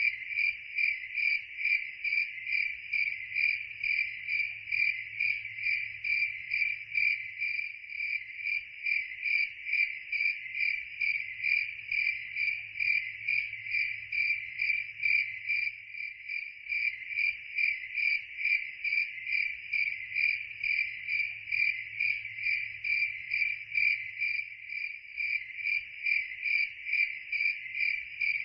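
Cricket chirping in a steady, even rhythm of a few high-pitched chirps a second.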